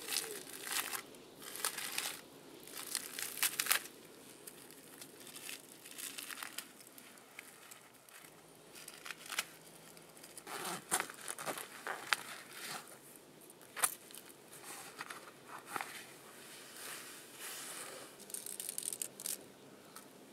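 Dry dead saplings and twigs being snapped and broken off by hand: a run of irregular crackling bursts with several sharp cracks.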